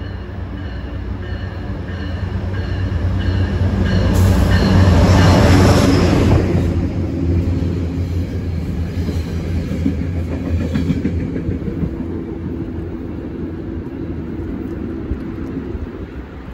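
Metro-North Harlem Line commuter train running through the station at speed. A low rumble with a steady whine builds to its loudest about five or six seconds in as the front passes, then the coaches roll by with a steady clatter that drops off near the end.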